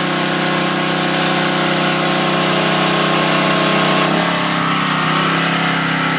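Pressure washer running, with a steady engine note and the hiss of the spray jet blasting scales off a redfish. The engine note shifts lower about four seconds in.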